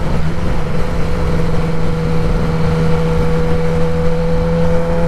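Kawasaki ZX-10R inline-four engine running at a steady freeway cruise through its Graves race exhaust, its pitch nearly level and creeping up slightly later on, under heavy wind and road rush on the helmet-side microphone.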